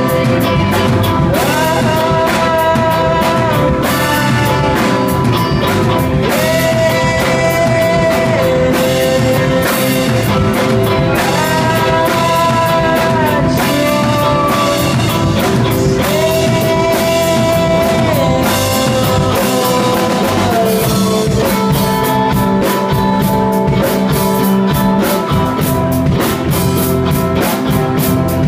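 Live rock band playing amplified: electric guitar, bass guitar and drum kit, with a melody of long held notes that bend up and down in repeated phrases. The held-note phrases give way to busier drumming and cymbals near the end.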